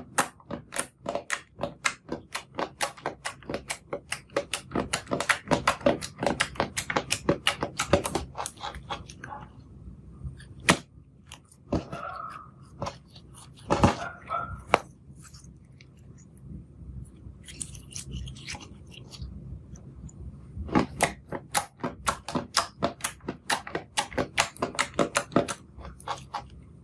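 Hands kneading, poking and stretching a thick clear slime tinted pink with blush, making a fast run of sticky clicks and pops, about three or four a second. The clicking thins out to a few scattered pops and brief squeaks from about ten to twenty seconds in, then picks up again.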